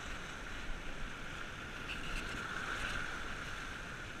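Steady rush of water along the hull of a sportfishing boat moving slowly ahead in gear, with a low engine rumble and wind on the microphone. The boat is being bumped forward to push water through a released marlin's gills.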